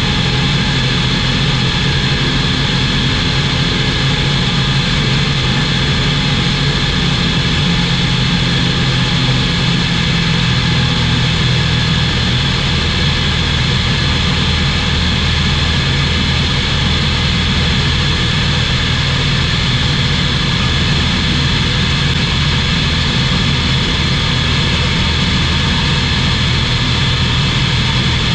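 SportCruiser light aircraft in cruise, its Rotax 912 four-cylinder engine and propeller giving a loud, steady drone. The low engine note shifts slightly about ten to twelve seconds in.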